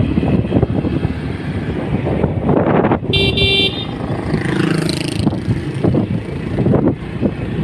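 Road traffic rumble with a vehicle horn tooting once, for about half a second, about three seconds in.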